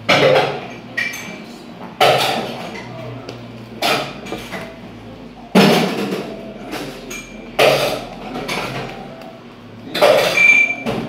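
Homemade shaving-cream slime being slapped down by hand on a surface: a loud thump about every two seconds, each dying away over about half a second.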